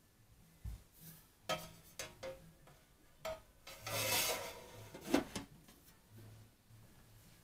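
Sheet-metal cover of an 852D+ SMD rework station being slid back over its chassis by hand: a few light knocks, a scraping rub of metal on metal about four seconds in, then a sharp clack as the cover seats.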